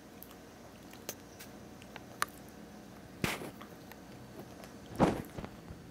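A Norfolk terrier's mouth noises as it chews dry kibble: a few faint clicks, then two short louder crunches about three and five seconds in.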